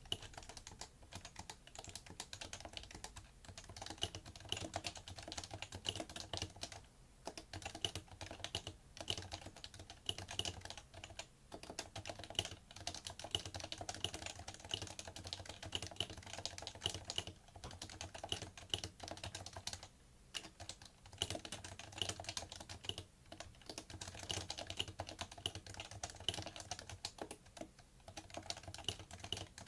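Fast, continuous typing on a PFU Happy Hacking Keyboard Professional2 with Topre electrostatic capacitive key switches: a dense run of keystrokes, broken by short pauses every few seconds.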